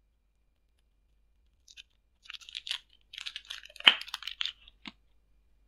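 Clear plastic blister packaging of a lip crayon being pried and torn open by hand. After a short pause comes a run of crinkling and crackling plastic, with one sharp crack near the middle, the loudest moment.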